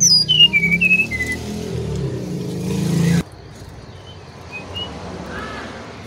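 Brown-chested jungle flycatcher singing a quick run of clear whistled notes that step down in pitch in the first second or so, over a loud low engine rumble that builds and then cuts off abruptly about three seconds in. A few faint high notes follow.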